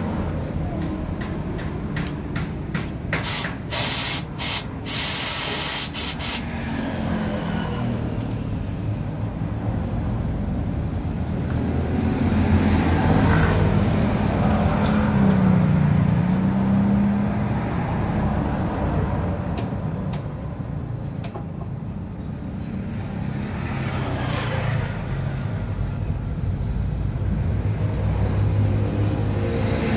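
An engine running steadily, its pitch shifting up and down for a few seconds near the middle. Several short, sharp bursts of air hiss come a few seconds in.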